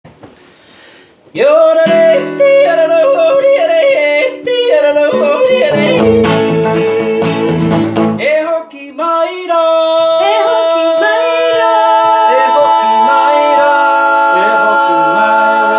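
Small group playing a Māori song on electric guitar, acoustic guitars and bass guitar, with several voices singing together. It starts about a second in, and in the second half the voices hold long notes in harmony.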